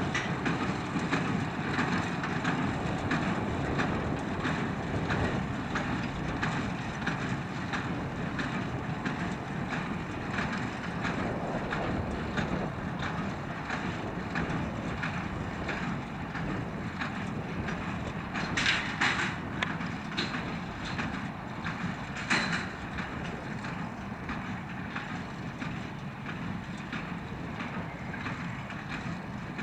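Farm tractor working hay in the field, its engine running steadily under load with a faint regular beat from the implement. Two brief louder bursts come about two-thirds of the way through.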